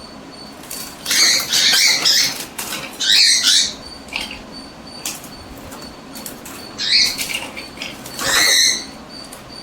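Two pet cockatiels fighting: harsh squawks and wing flaps come in about four loud bursts, the longest near the start and the last near the end, with short clicks of scuffling in between.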